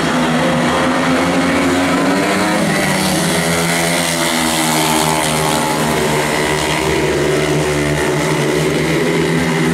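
Four speedway bikes' 500cc single-cylinder methanol engines racing together, loud, their pitches rising and falling against each other as the riders go through the bends.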